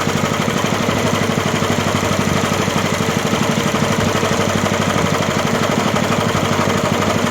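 Engine-driven grass chopper for livestock feed running steadily, with a fast, even pulsing throb and no change in speed.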